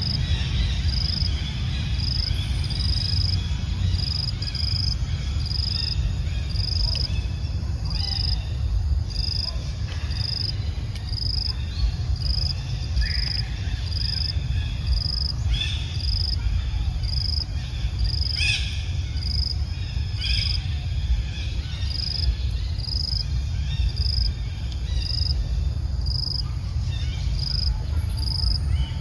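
An insect, likely a cricket or cicada, chirps in a steady high-pitched rhythm, a little more than one chirp a second, over a constant low rumble. A few short, sharp sounds break in midway, the loudest about 18 seconds in.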